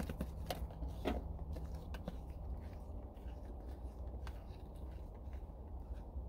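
A spatula scraping chocolate cake batter out of a mixing bowl, with a few light clicks in the first couple of seconds and fainter scraping after.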